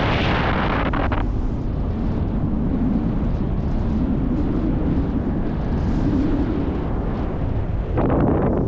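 Wind rushing over the microphone in flight: a steady low rumbling buffet, with louder gusts in the first second and near the end.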